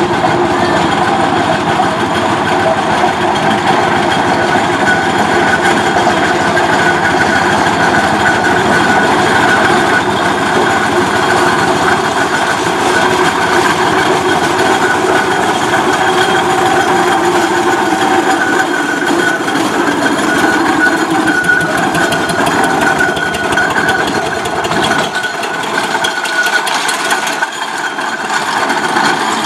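Steam road roller running along a tarmac road: a steady mechanical clatter and rumble from its iron rolls and motion. It drops off and thins out near the end as the roller moves away.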